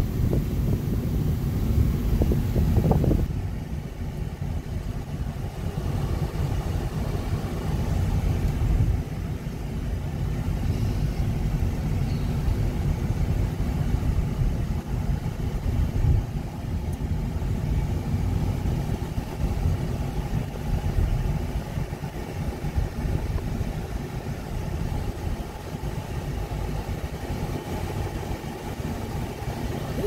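Steady road and engine rumble of a car driving at low town speed, heard from inside the cabin.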